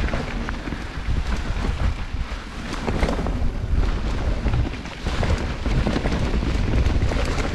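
Mountain bike descending a dirt trail: wind buffeting the camera's microphone over a steady rumble of tyres on the ground, with knocks and rattles from the bike over bumps.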